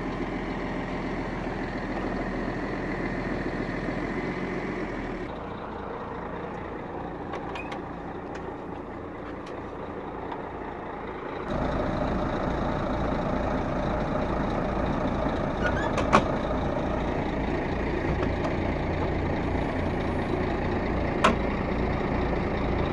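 Heavy vehicle diesel engine running steadily at idle, louder in the second half. Two sharp clicks stand out over it later on.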